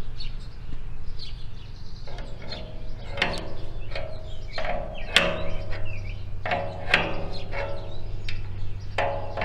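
Wrench working the homemade band sawmill's blade-tensioning nut: a series of sharp metal knocks and clinks, each with a short ring, starting about two seconds in and coming roughly every half second to second.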